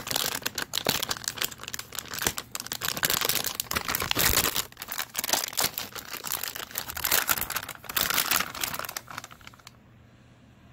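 Metallised anti-static bag crinkling and crackling as it is handled, a dense irregular crackle that stops near the end.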